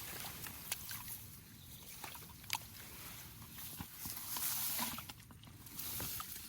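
Water sloshing and splashing, with scattered short clicks and taps and a louder swell of splashing about two-thirds of the way through.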